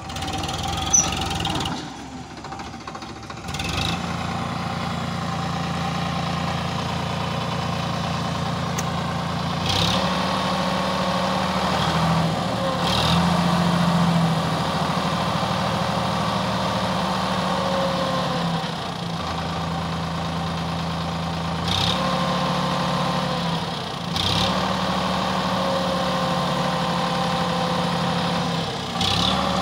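Sonalika DI 35 tractor's diesel engine running steadily, its speed and loudness stepping up and down several times. There is a brief sharp click about a second in.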